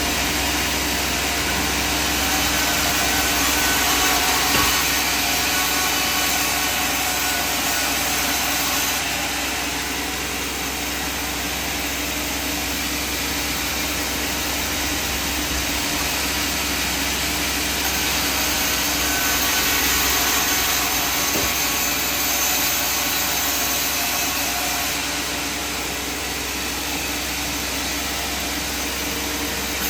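Sawmill machinery running steadily, a continuous mechanical drone with a steady hum under a broad rushing noise.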